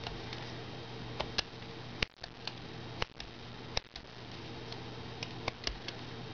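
Carving knife cutting into a small wooden block, making irregular sharp clicks as chips are sliced away, over a faint steady hum.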